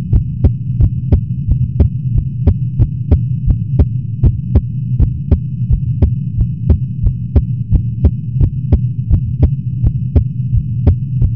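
A person's heartbeat, beating a little fast in a quick, even rhythm of short thumps, over the loud steady hum of an air conditioner.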